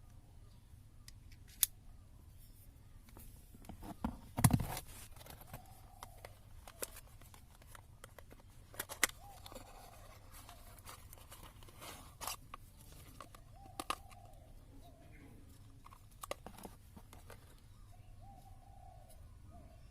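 Scattered sharp clicks, scrapes and handling noises from hand work on small parts, loudest about four and a half seconds in. A bird calls faintly several times in the background.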